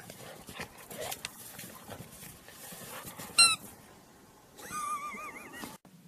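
A dog pushing and digging through deep snow with a rubber ball toy, the snow rustling and crunching. A short high squeak comes about three and a half seconds in, and a longer squeak that wavers up and down in pitch follows near the end.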